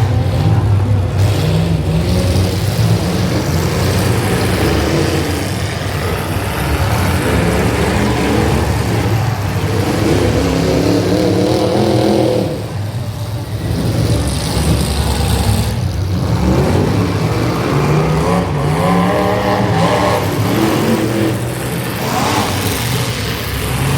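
Several demolition derby cars' engines running and revving at once, their pitch rising and falling.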